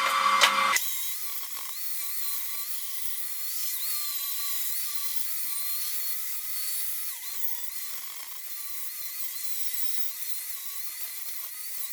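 Grinder running at speed, grinding down welds on steel square-tube caps to profile: a steady high whine whose pitch wavers slightly as the load changes, after a louder, rougher stretch in the first second.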